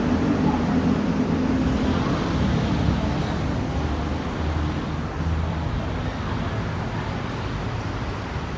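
Steady road traffic noise, a low rumble that eases off a little toward the end.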